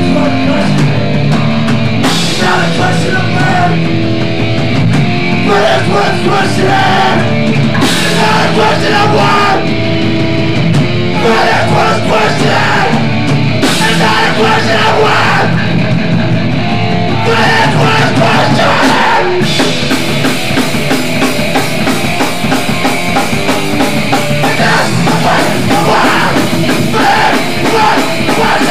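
Loud hardcore punk music with distorted guitar and drums; about two-thirds of the way in, the cymbals fill in and the drumming grows denser.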